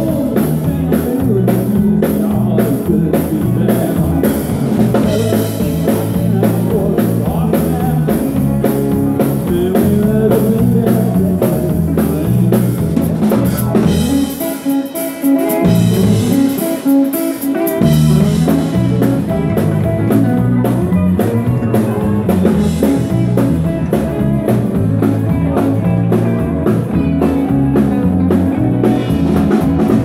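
Live band playing dance music on drum kit, electric guitar and bass guitar with a steady beat. About halfway through, the bass drops out for a few seconds, then the full band comes back in.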